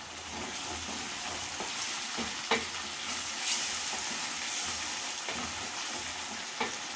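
Onions, tomatoes and freshly added green bell pepper sizzling in hot oil in a saucepan, a steady frying hiss with a few light clicks of a spoon stirring against the pan.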